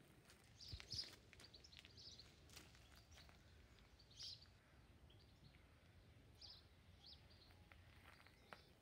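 Near silence with faint, scattered short bird chirps, a few seconds apart, over a low background rumble.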